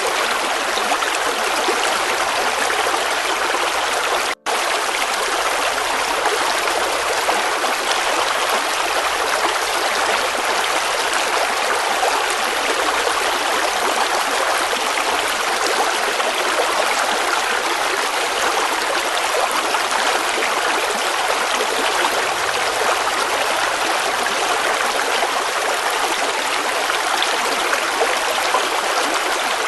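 River water flowing and splashing in a steady, even rush. The sound drops out for an instant about four seconds in.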